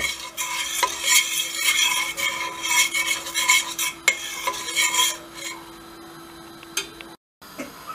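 A metal spoon stirring and scraping flour and butter round a stainless steel pot, toasting the roux so it does not burn. The strokes go quieter about five and a half seconds in, with a brief break in the sound near the end.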